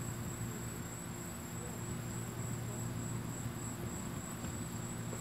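Outdoor ambience: a steady, high-pitched insect trill over a low, even hum.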